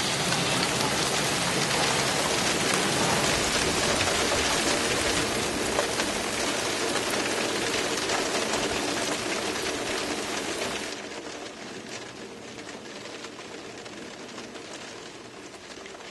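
Heavy rain falling steadily. About eleven seconds in it drops sharply to a much fainter hiss with a few scattered ticks.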